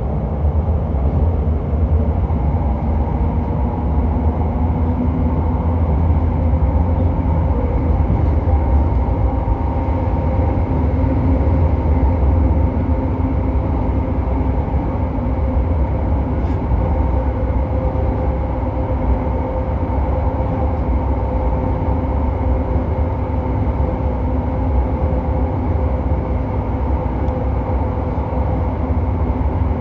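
Running sound inside JR Hokkaido 731-series electric car MoHa 731-109 at a steady speed: low rail and bogie rumble with a steady traction-motor hum. The motor on the Otaru-side bogie gives an abnormal roar, like that of an old nose-suspended (tsurikake) motor, which the recordist treats as a fault noise.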